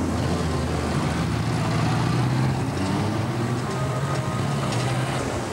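Honda Gold Wing touring motorcycles riding past at low speed, their engines running with a steady low hum that swells a little about two seconds in.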